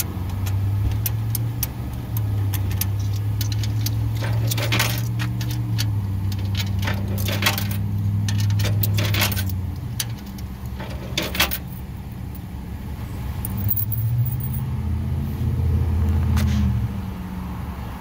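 Payphone being dialled and fed coins: scattered sharp clicks of keypad presses and metallic clinks and jangling of coins and the steel-armoured handset cord, thickest through the middle of the stretch. A low steady hum runs underneath.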